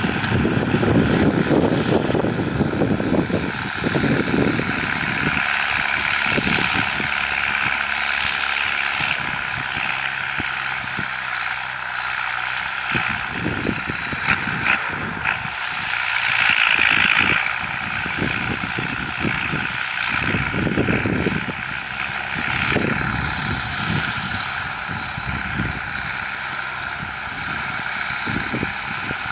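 New Holland 7840 tractor's diesel engine running steadily under load while it pulls an 18-disc harrow through dry ground, heard from across the field, with irregular gusts of wind on the microphone.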